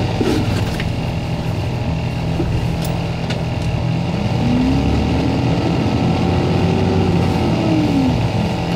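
An engine runs steadily, and from about halfway in its pitch rises and then falls again over about four seconds, like an engine revved up and let back down.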